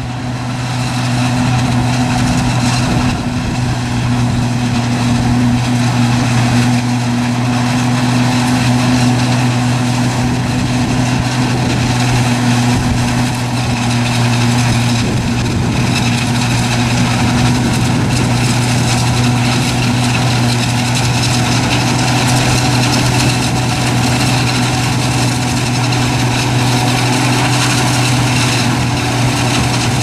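Heavy engine running steadily at a constant speed, a low, even hum with no revving.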